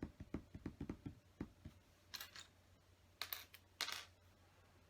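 Quiet clicking and clattering of small plastic LEGO pieces being handled and sorted. A quick run of light clicks fills the first second and a half, followed by a few short, sharper scrapes.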